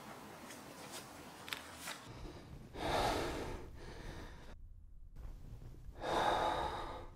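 A man breathing heavily in distress: two loud gasping breaths about three seconds apart.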